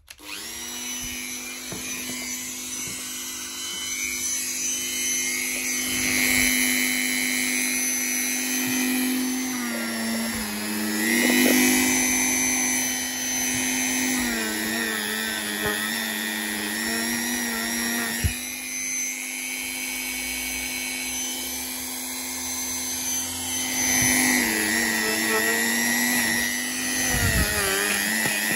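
Hand-held rotary tool running at high speed, grinding the cast aluminium ports of a Mercedes M110 cylinder head. It gives a steady whine that dips briefly in pitch a few times as the bit is pressed into the metal.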